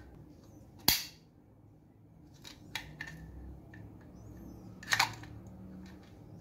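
Old barn padlock with a secret lock mechanism being worked in testing: a series of sharp metallic clicks and snaps from the lock mechanism. The loudest comes about a second in, then a few lighter clicks, then a strong double click near five seconds.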